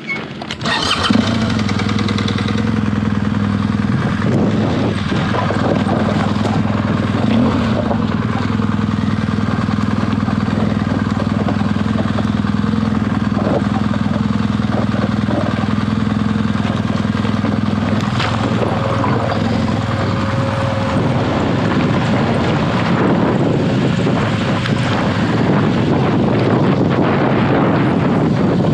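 BMW R1200GS Adventure's flat-twin boxer engine running steadily at low revs. After about twenty seconds its even hum gives way to a rougher, noisier sound.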